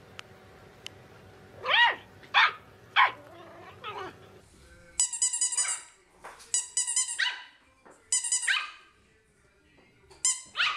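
Puppies yapping: a small terrier puppy gives four sharp, high yaps a little over half a second apart. Then a Yorkshire terrier puppy yaps in quick high-pitched bursts.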